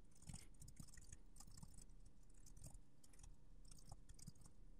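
Faint computer keyboard typing: several quick bursts of key clicks as code is entered.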